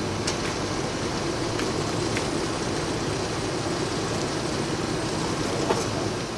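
Steady hum of city background noise, with a few faint ticks.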